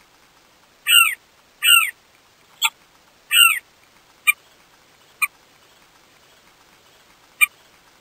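Somali courser calling: three longer falling notes in quick succession, then four short sharp single calls spaced about a second or more apart.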